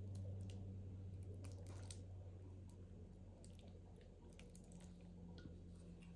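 Faint wet squishing and scattered small clicks of a lumpy, watery Bisquick-and-butter batter being poured from a bowl over a casserole filling in a glass baking dish, over a steady low hum.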